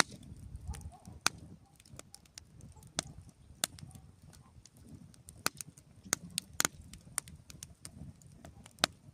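Wood fire crackling, with irregular sharp pops and snaps over a faint low rumble of the flames.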